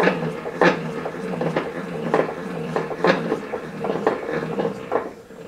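Milling machine's knee being lowered: a steady hum from the knee's drive with a regular tick about twice a second, stopping about five seconds in.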